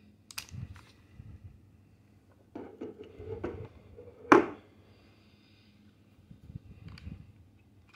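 Handling noise from a polymer pistol and its molded plastic holster over a hard plastic case. There are a few light clicks, a stretch of scraping and knocking, then one sharp click about four seconds in, the loudest sound, and a few softer clicks near the end.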